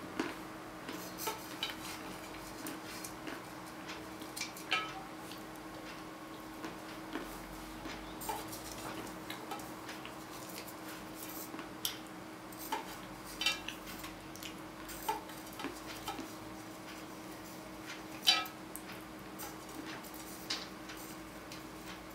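Salted peanuts being handled and eaten: irregular clicks, clinks and crunches at uneven intervals, the loudest near the end.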